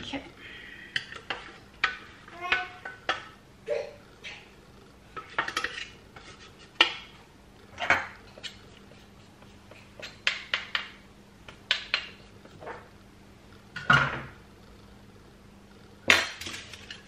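A spatula scraping and knocking against a stainless steel mixing bowl as cake batter is scraped out into a baking tin: irregular clinks and scrapes, with the loudest knocks near the end.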